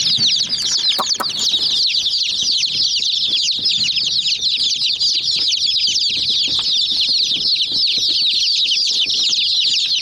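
A brood of chicken chicks peeping without pause, many short high chirps overlapping into a dense chorus. There are a couple of light taps about a second in.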